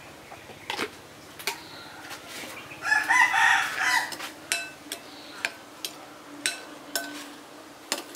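A rooster crows once, about three seconds in. Sharp clinks of utensils against dishes come every second or so.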